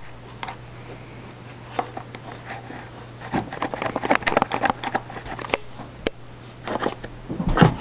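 Scattered clicks and short scratching noises from cleaning out a drip coffee maker's tubes by hand, busiest around the middle, over a low steady hum.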